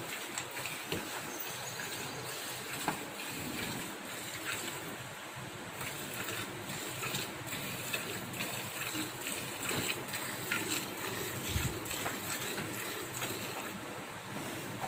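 Streams of milk squirting into a steel bucket as a water buffalo is milked by hand, many short spurts over a steady hiss.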